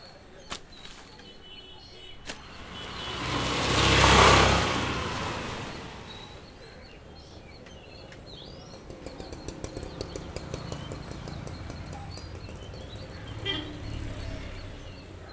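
Street ambience: a passing vehicle swells to its loudest about four seconds in and fades away. Then come small bird chirps and a patch of light crackling, like a leaf packet being unfolded.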